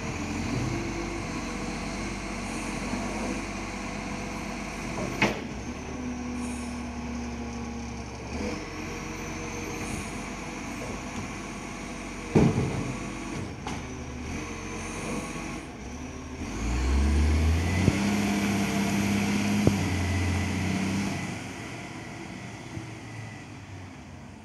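Iveco ACCO garbage truck's diesel engine running, with two sharp knocks. About two-thirds through, the engine revs up with a rising whine as the truck pulls away, then its sound fades as it drives off into the distance.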